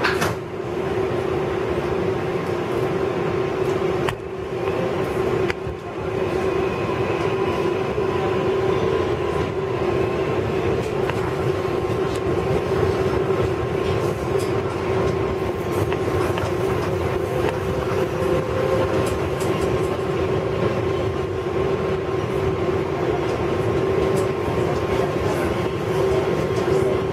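R188 subway train heard from inside the car while in motion: a steady rumble of wheels on rail under a constant-pitched hum and whine.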